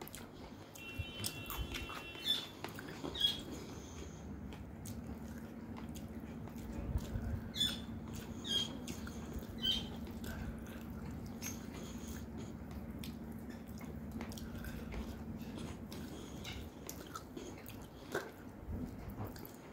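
Close-miked eating sounds: a person chewing rice and fish with the mouth closed, with scattered sharp wet lip smacks and mouth clicks, in bunches a few seconds in and again near the middle. A faint steady hum runs under the middle part.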